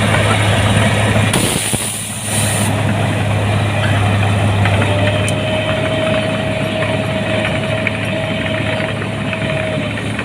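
Rice combine harvester's engine running steadily with a deep hum. It dips briefly about two seconds in, and a thin steady whine joins about halfway through.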